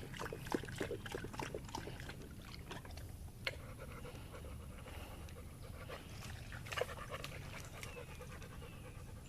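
A dog panting, with many short crackles and clicks, most of them in the first two seconds and again about three and a half and seven seconds in.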